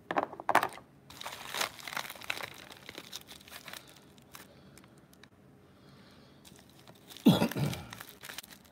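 A paper-and-plastic shipping mailer being torn open and crinkled by hand, in rustling, ripping bursts. About seven seconds in there is a single louder thump.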